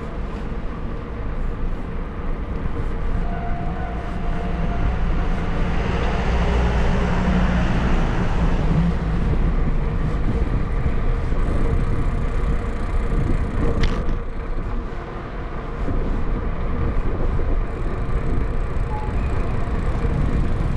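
Street traffic noise heard from a moving bicycle, with a motor vehicle passing about six to ten seconds in, and a single sharp click about fourteen seconds in.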